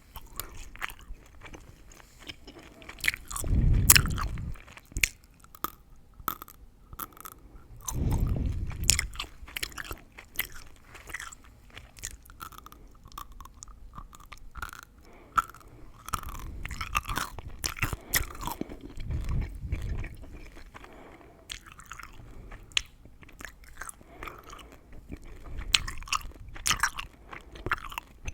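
Close-miked gum chewing: wet smacking and many quick crackling clicks of the gum. A couple of louder, deeper thuds stand out, about 4 and 8 seconds in.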